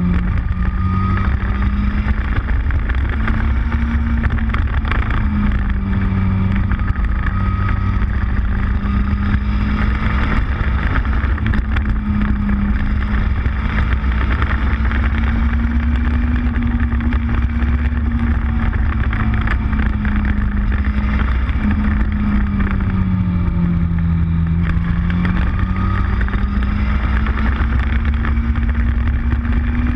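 Motorcycle engine running at a steady cruising speed, heard from on board, its pitch drifting slowly up and down with the throttle. It eases off about three-quarters of the way through, then climbs again near the end, under a constant low rush of wind and road noise.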